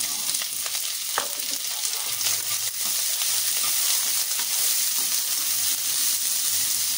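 Onions frying in hot oil, a steady sizzling hiss with the odd small tick.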